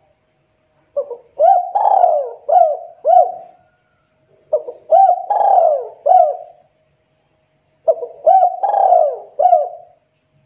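Spotted dove (tekukur) cooing: three song phrases about three seconds apart, each a run of about five arching coos.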